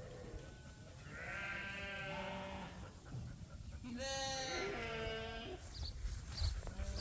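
Lambs bleating: two long bleats, the first about a second in and the second about four seconds in.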